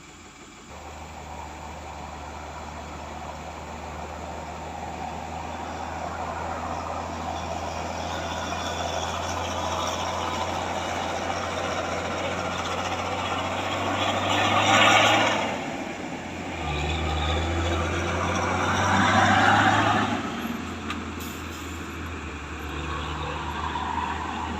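Excavator's diesel engine running under load while it works a hydraulic rock breaker, the noise building slowly and swelling louder twice past the middle.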